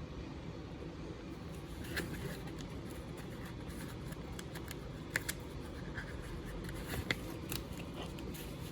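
Loose single sheets of paper being handled and turned over: light rustling with a few short, sharp clicks spread through, over a steady low room hum.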